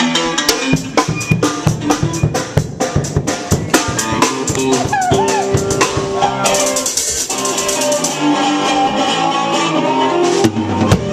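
Rock band playing live: electric guitar notes ringing over a drum kit, with rapid drum hits in the first half and a cymbal crash about six and a half seconds in.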